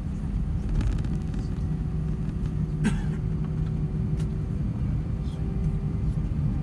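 Airbus A320 cabin noise while taxiing: a steady low rumble of the IAE V2500 engines at idle and the wheels rolling over the taxiway, with a steady hum underneath. A brief sharp click about three seconds in.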